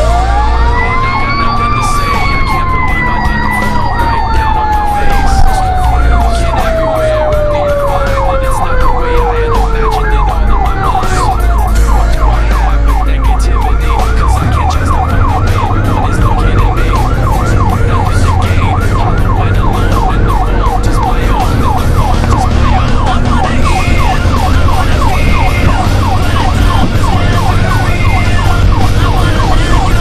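Fire apparatus sirens while responding: an electronic siren on a fast yelp throughout, while a mechanical siren winds up over about two seconds and then slowly coasts down in pitch over the next twelve or so. Engine rumble runs underneath.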